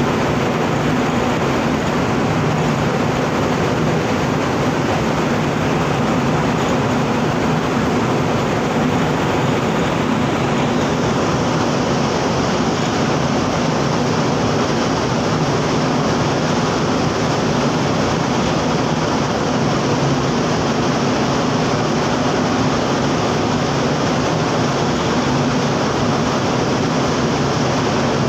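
Steady rumble aboard a cargo ship underway: a low engine drone under a constant rush of wind and water. The hiss grows a little stronger about ten seconds in.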